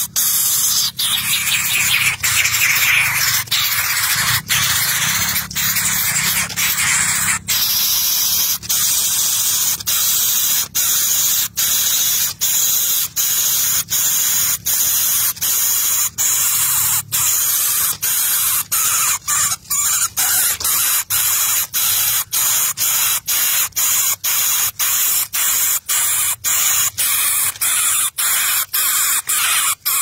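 A nestling bird hissing loudly, a harsh breathy hiss repeated over and over, each hiss broken by a short gap about one and a half times a second.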